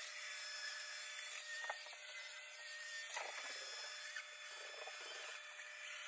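iRobot Roomba J7+ robot vacuum running, a steady high whirring hiss with a few brief crackles.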